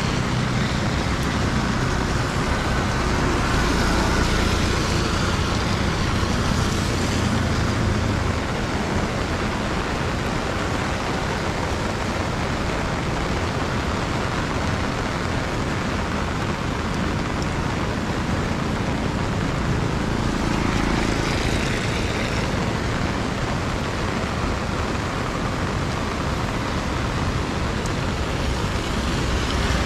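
Steady road-traffic noise in the rain: a continuous rushing hiss. A vehicle engine runs low for the first several seconds, and another vehicle passes about 20 seconds in.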